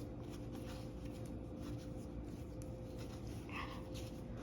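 Hands folding and tucking naan dough into a ball: faint soft rubbing and handling noises over a steady low hum.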